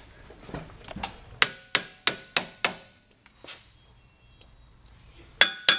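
Hammer tapping on a Land Rover's rear brake rotor: a string of sharp metal strikes about three a second, then two louder, ringing strikes near the end. The blows seat the rotor flat on the hub while the retaining bolt is held tight.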